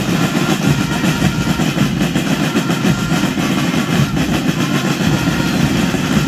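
Massed marching drums of a school drum-and-bugle band playing a fast, dense cadence.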